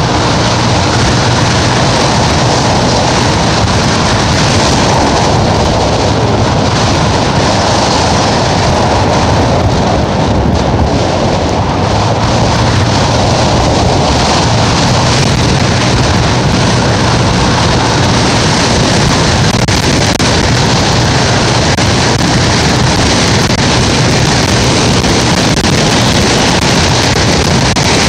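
Steady, loud wind noise buffeting the microphone while riding a gas-powered vehicle along a road, with a low steady engine hum underneath.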